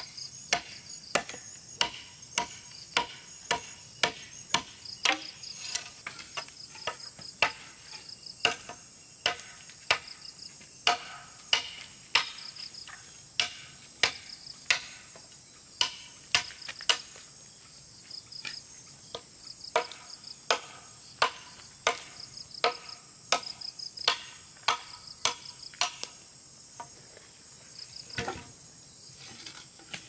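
Repeated sharp knocks, like a blade or hammer striking wood, about one to two a second with a couple of short pauses, over steady high-pitched insect chirring.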